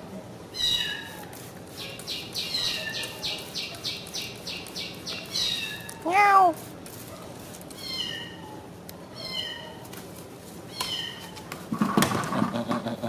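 A single short mewing call, rising then falling in pitch, about six seconds in, the loudest sound here, over repeated high chirps and quick trills. Near the end, a burst of rustling and handling noise.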